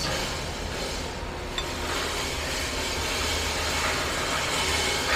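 Steady low mechanical hum with a hiss that grows slightly louder, and a single light metallic click about one and a half seconds in.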